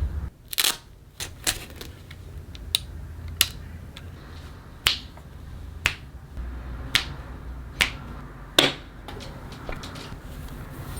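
Toy packaging being handled during an unboxing: about a dozen sharp separate clicks and taps, unevenly spaced, over a low steady hum.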